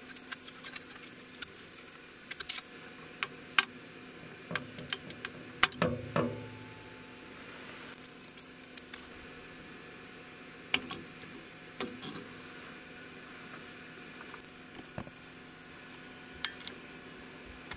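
Scattered clicks and taps of a metal scraper and hands working a green PLA 3D print loose from the printer bed as it breaks off its support pillars, with one louder crack about six seconds in, over a steady faint hiss.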